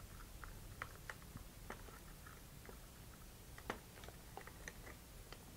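Faint, scattered small clicks and rustles of hands tying a short Kevlar cord onto a metal quick link and swivel, over a steady low room hum.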